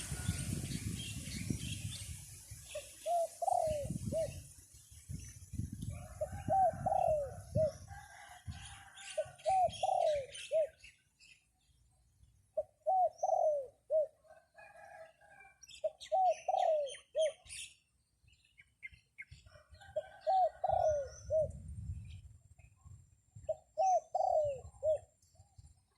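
A dove cooing in short repeated phrases, about one every three to four seconds, with smaller birds chirping faintly between them. Gusts of wind rumble on the microphone at the start and again near the end.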